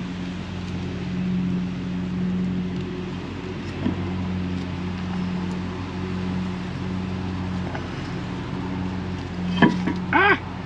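Steady low mechanical hum from a running motor. A light click comes about four seconds in, and a couple of sharper clicks with a brief squeak come near the end.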